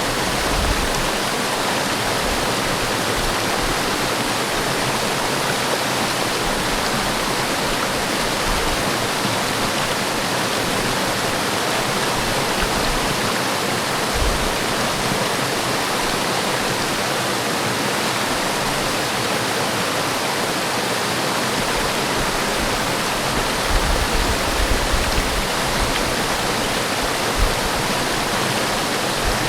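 Forest waterfall: water falling and splashing in a steady, even rush, with a few brief low rumbles near the end.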